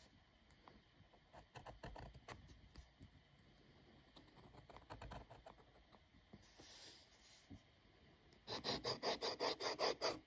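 Metal dip-pen nib scratching across paper as it draws ink lines, light scattered strokes at first. Near the end comes a quick run of about a dozen louder hatching strokes.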